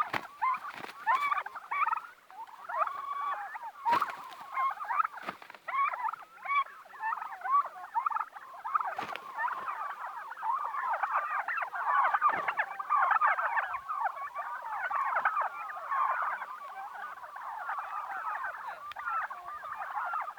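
A flock of domestic turkeys calling, a dense chatter of many short overlapping calls, with a few sharp clicks.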